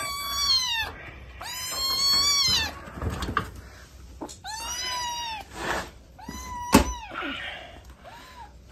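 Kitten meowing about five times, each call high-pitched and arching up then down, the last one short. A sharp click sounds about seven seconds in.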